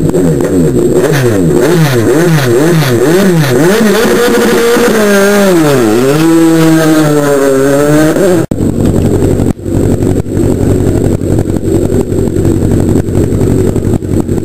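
Single-seater race car engine revving hard, its pitch climbing and dropping quickly over and over, then sagging and climbing again in one longer sweep. Just past halfway the sound cuts to another single-seater's engine running at a rough, steady idle.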